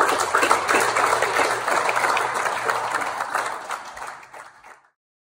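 Audience applauding: dense, many-handed clapping that fades out near the end.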